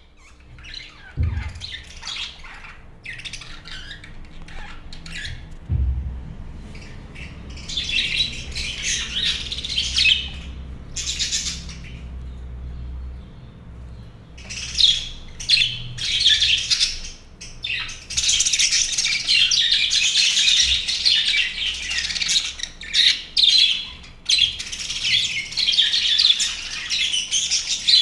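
A flock of budgerigars chattering, chirping and squawking in a cage, scattered calls at first, building into dense continuous chatter about two-thirds of the way through. Two low thumps near the start.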